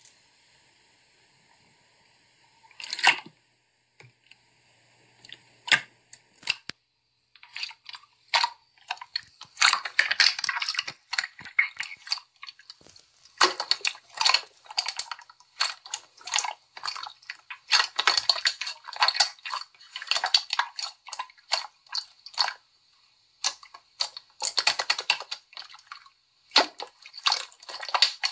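Clear slime being squeezed and stretched by hand, with dense clicking and popping in bursts. The first several seconds hold only a couple of isolated clicks.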